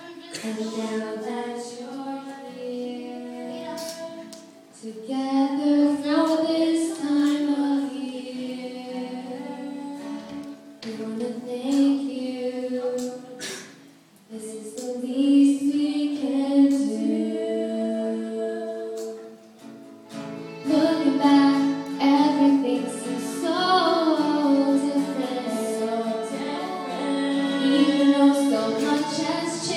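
A young woman singing a pop song live, with acoustic guitar and violin accompaniment.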